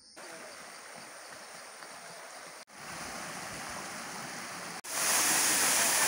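Rushing water of a waterfall, heard as a steady hiss in three cut clips that step up in loudness, the last and loudest about five seconds in.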